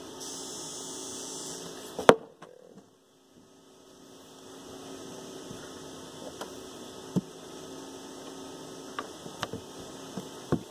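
Steady mains hum throughout, with a few sharp knocks as a hammer handle is worked down inside a plastic prosthetic socket to seat a vacuum plate. The loudest knock comes about two seconds in; smaller ones follow near the end.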